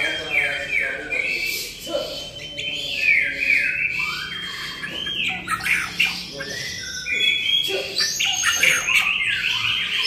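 White-rumped shama singing loudly and continuously: a varied run of clear whistles, rising and falling glides and rapid chattering notes.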